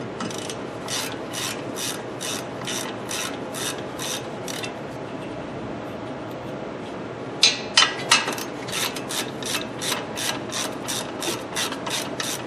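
Hand ratchet wrench clicking in even strokes, about three clicks a second, as a long caliper bracket bolt is backed out. It pauses midway, gives a few louder clacks about eight seconds in, then clicks on again.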